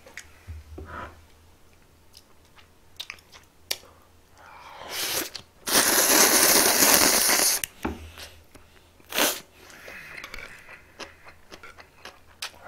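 A person slurping buckwheat noodles (makguksu): one loud, long slurp about five seconds in that lasts about two and a half seconds, and a shorter one a couple of seconds later. Soft chewing and small clicks of eating fill the rest.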